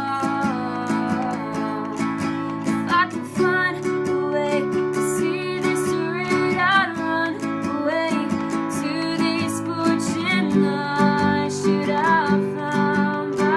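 Acoustic guitar strummed in steady chords while a woman sings a melody over it.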